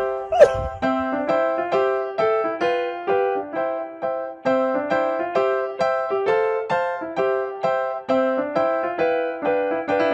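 Background music: an electric piano plays a steady run of evenly spaced notes, about three a second. About half a second in, a brief loud sound with a quick bend in pitch cuts across it.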